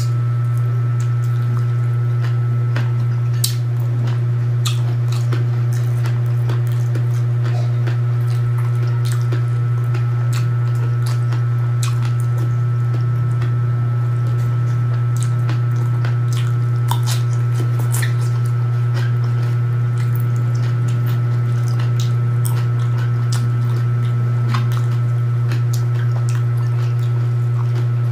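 A loud steady low hum, with faint wet clicks and smacks scattered over it from someone eating with their fingers and chewing.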